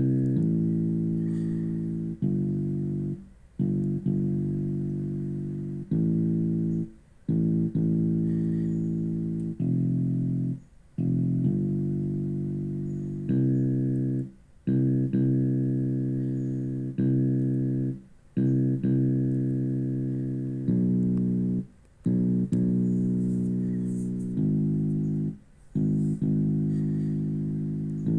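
Yamaha PSR-E263 portable keyboard playing a built-in song: a run of held low chords, each about one to two seconds long and fading before a short break and the next chord.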